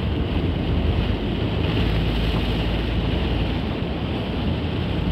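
Heavy downpour heard from inside a moving vehicle: a steady rushing hiss of rain on the windows and body over the low rumble of the vehicle and road.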